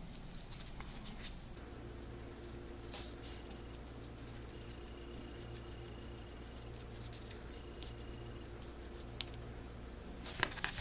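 Bristle paintbrush scratching and dabbing liquid latex onto a small plastic bat skeleton's rib cage. Faint, with scattered light ticks over a steady low hum, and a few sharper clicks near the end.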